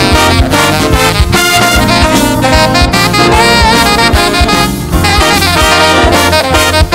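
Big band playing a swing jazz number live, the trumpet and trombone section leading over saxophone, drum kit, piano, guitar and bass guitar.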